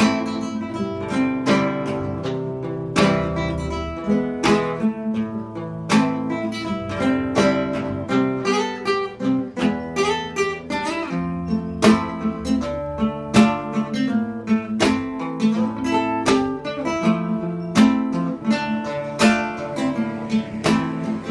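Background music: an acoustic guitar picking a quick run of notes over bass notes.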